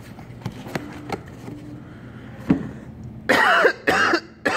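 Light clicks and knocks of a cardboard box and packaging being handled, then, about three seconds in, a man's voice in several loud short bursts.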